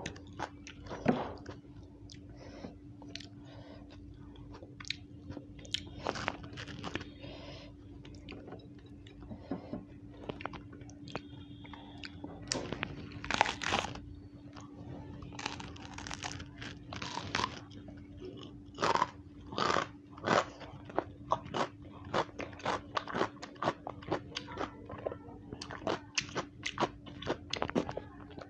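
Close-up crunching of raw bitter gourd being bitten and chewed: many irregular crisp crunches, sparse at first and coming thick and fast through the second half, over a faint steady hum.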